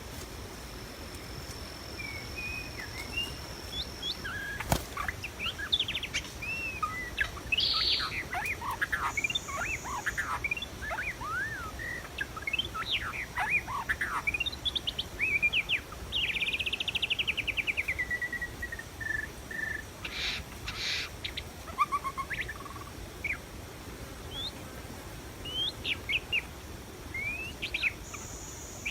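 White-rumped shama singing: a varied string of whistled phrases and sweeps, then, about sixteen seconds in, a fast trill that falls in pitch, followed by scattered shorter calls.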